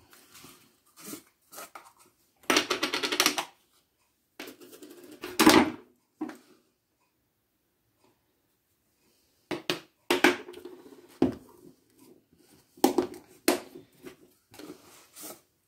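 Clicks, knocks and brief rustles of plastic spice containers being handled: a screw lid and shaker insert coming off and a metal measuring spoon being used to add garlic powder to flour. The sounds are scattered, with a silent gap of about three seconds midway.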